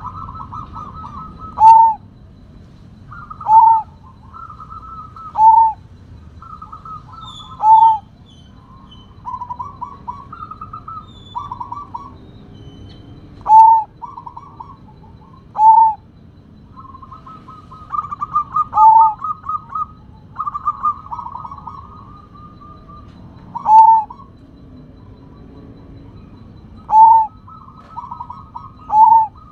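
Sumbawa zebra dove (perkutut) singing: repeated phrases of quick stuttering coos, most ending in one loud, clear coo, about ten phrases spaced roughly two seconds apart with a few longer rolling trills in the middle.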